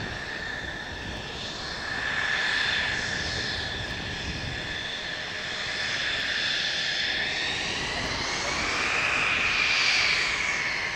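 Mitsubishi F-2's single F110 turbofan engine whining steadily at taxi power over a low rumble. The whine swells louder and rises a little in pitch about nine to ten seconds in as the jet turns to face the listener.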